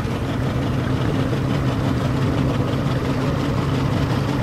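Motorboat engine running steadily with a low, even hum.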